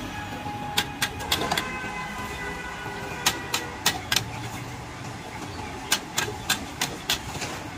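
A metal ladle clanking and scraping against a steel wok while stir-frying noodles and vegetables, in three quick runs of strikes about three or four a second, over a steady hiss of frying and the gas burner.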